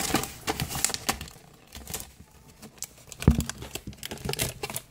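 Paper crinkling and rustling as a sheet of printer paper is handled inside a cardboard shoebox, dying down midway, with a single knock a little after three seconds and more rustling after it.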